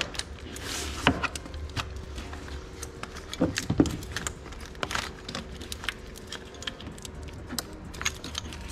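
Scattered metallic clicks and clinks of hand tools and fasteners being worked loose by hand in an engine bay, over a low steady hum.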